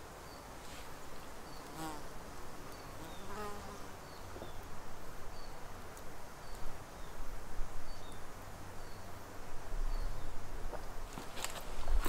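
A flying insect buzzing close by, its hum swelling and fading as it moves about. Near the end come a few knocks, as someone steps down a wooden ladder.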